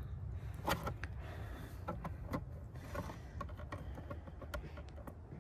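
A dozen or so light clicks and knocks at uneven intervals over a steady low rumble: handling noise.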